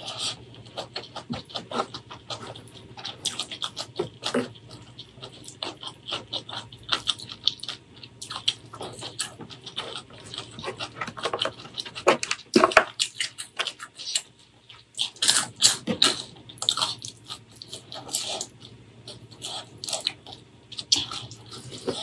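Close-miked eating by hand: chewing with wet mouth and lip smacks, a dense, irregular string of sharp clicks, as mouthfuls of white rice, stir-fried yellow mustard greens and crisp fried fish are eaten.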